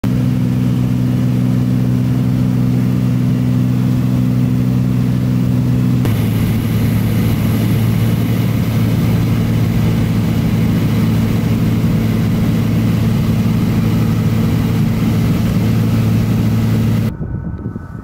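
Drone's motors and propellers humming steadily with a low buzzing tone. The tone shifts slightly about six seconds in, and the sound drops away suddenly near the end.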